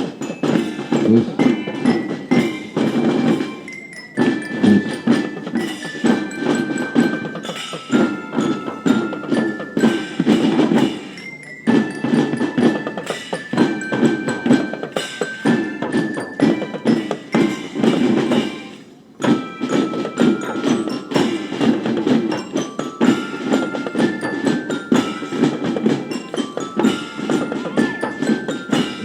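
Marching drum band playing: bell lyra (glockenspiel) tones pick out a stepping melody over fast, dense drumming, with short breaks between phrases about 4, 11 and 19 seconds in.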